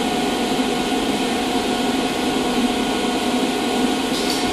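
Steady hum of running shop machinery, holding a few constant tones without change.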